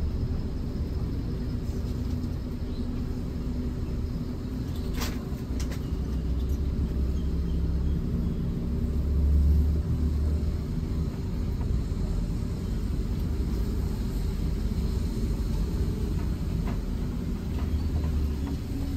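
Steady low rumble of an intercity bus's engine and running gear, heard from inside the cabin, swelling briefly about nine seconds in, with a single light click about five seconds in.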